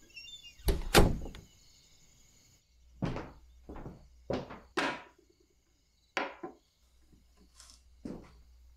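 Two heavy wooden thumps just under a second in, like a door being shut, over crickets chirping. The crickets stop about two and a half seconds in, and a run of separate knocks and clunks on wood follows.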